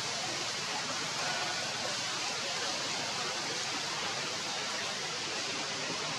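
Steady, even background hiss with no distinct events, strongest high up.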